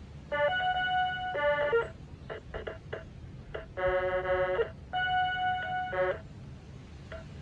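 Circuit-bent Protech toy keyboard playing glitchy electronic tones in bursts of about a second, with short blips between them and a lower, buzzier chord near the middle.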